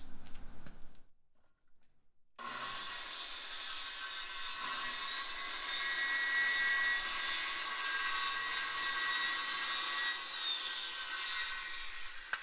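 Makita circular saw starting abruptly about two and a half seconds in and then running steadily as it cuts lengthwise through a wooden board.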